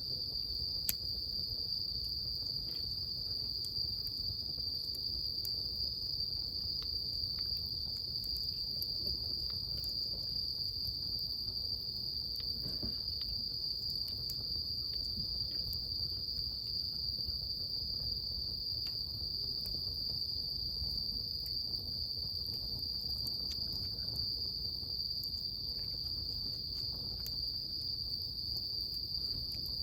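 A steady, unbroken chorus of crickets, with the wood of a bonfire crackling in scattered sharp pops over a low rumble of the flames.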